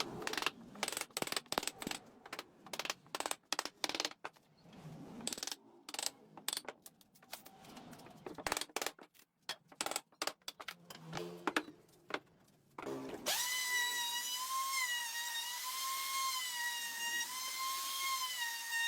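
Irregular sharp clicks and knocks of work on wood. About two-thirds of the way through, a high-speed power tool starts up and runs with a steady whine that wavers slightly in pitch.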